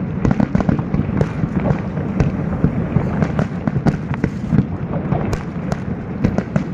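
Aerial fireworks display: shells bursting in quick succession, a dense, continuous run of booms and sharp cracks several times a second over a low rumble.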